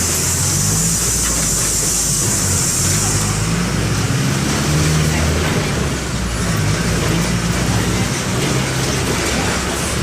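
Mercedes-Benz OM 904 LA four-cylinder inline turbodiesel of an OF-1418 bus running under way, its low note shifting up and down with the driving, heard from inside the bus. A high hiss fades out about three seconds in.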